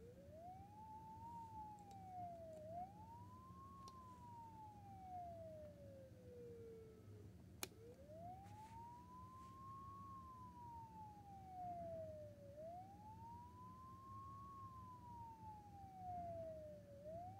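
Warn Alert model 55 electronic siren sounding its wail, a single tone rising and falling slowly, each sweep taking several seconds, with a steady low hum beneath. A single sharp click sounds about midway.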